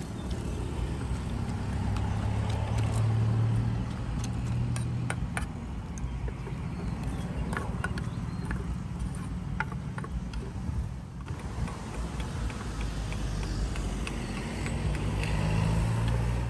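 Street traffic: engine hum from passing vehicles, swelling twice, with scattered light clicks and clinks.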